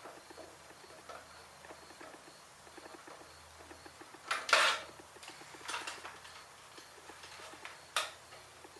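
Hand tools on a small engine's carburetor bolts: light metal ticks and clinks of a wrench being worked on a hard-to-reach bolt, with a louder metallic clatter about four and a half seconds in and a sharp click near the end.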